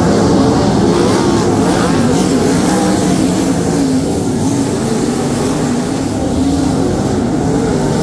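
Several V8 sprint car engines running on the dirt track, their pitch rising and falling as the cars power through the straights and back off for the corners.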